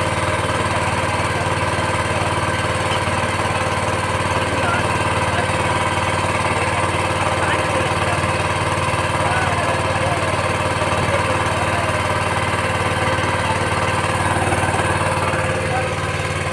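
Small motorboat engine running steadily, heard from on board the boat, a low even hum that does not change in pace.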